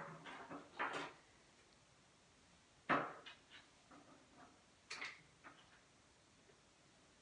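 Small plastic toy pieces clicking and knocking as they are handled on a wooden table: a cluster of light clicks in the first second, one sharper knock about three seconds in, and a few more faint clicks about two seconds later.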